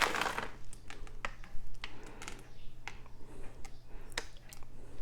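Chocolate chips being shaken out of a plastic bag: a brief crinkle of the bag at the start, then scattered small clicks as chips drop.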